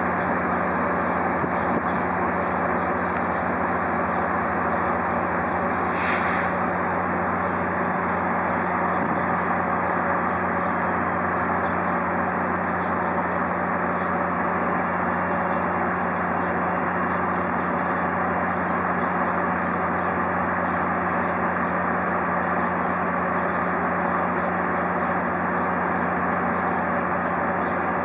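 Idling rail-yard locomotive engine, a steady low hum under a constant hiss. A brief, higher hiss cuts in about six seconds in.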